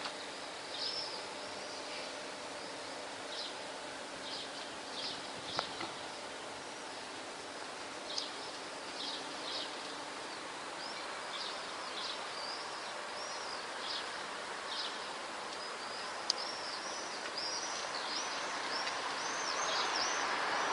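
Swallows calling: short, high chirps, scattered at first, then coming thick and fast near the end, over a steady city background hum. One sharp click about sixteen seconds in.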